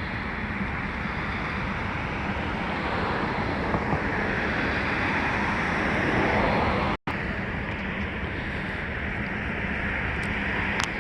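Steady outdoor road-traffic noise, swelling as a vehicle passes about six seconds in. The audio drops out for an instant just after.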